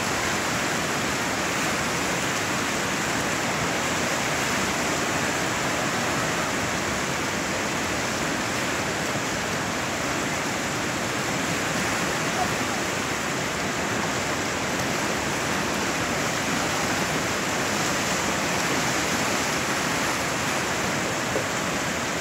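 Steady rushing of a large whitewater river rapid in spring high water, about 6000 cfs.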